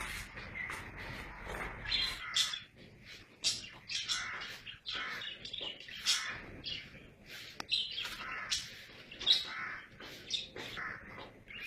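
Many short, high chirping calls at irregular intervals, with a few sharp clicks among them.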